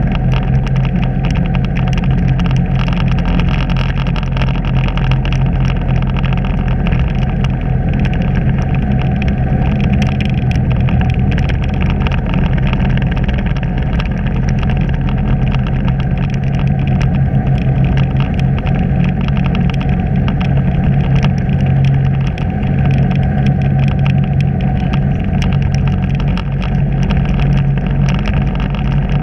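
Engine of a slow-moving vehicle running steadily, a constant low hum with a steady noisy rush over it.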